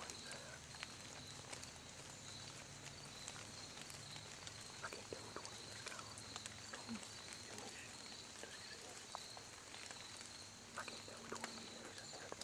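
White-tailed deer walking through dry leaf litter, making faint scattered crunches and snaps. Behind it, an insect calls steadily in a pulsing rhythm of about two pulses a second.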